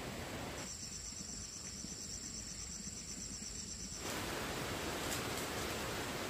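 A high-pitched insect trill with an even, fast pulse starts about half a second in and cuts off suddenly about four seconds in. A louder steady hiss takes over after it.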